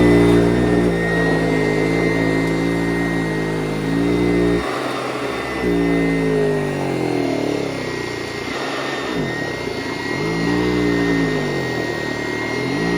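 PowrFlite PF70 vacuum cleaner running with a steady motor hum and a high whine, its belt-driven brush roller turning on a worn belt. From about five seconds in, the motor's pitch dips and rises again several times.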